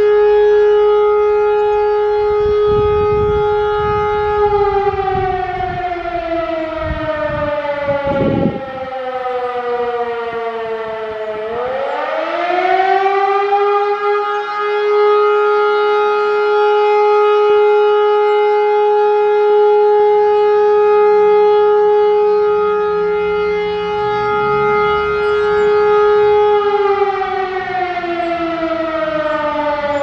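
Rooftop electromechanical civil-defence siren sounding a loud, steady howl. About four seconds in it winds down in pitch for several seconds, then spins quickly back up to full pitch and holds there, and it begins winding down again near the end. A low rumble sits under it in the first half.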